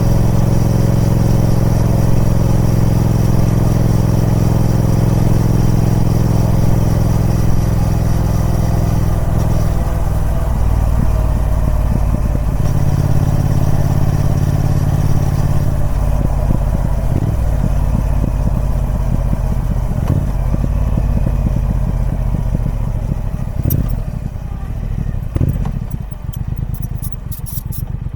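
Triumph Speed Twin 1200's parallel-twin engine through its stock exhaust, running at steady revs for the first several seconds, then dropping lower about halfway through until the separate firing pulses can be heard as it slows toward idle. A few sharp clicks near the end.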